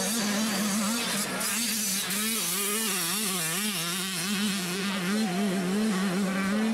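Motocross bike engine revving hard, its pitch rising and falling in quick repeated swells.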